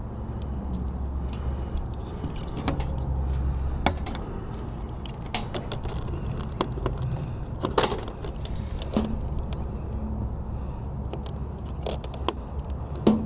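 Scattered clicks, taps and knocks of hand work fastening a cable mount to vinyl siding, the loudest a little before halfway and near the end, over a steady low hum.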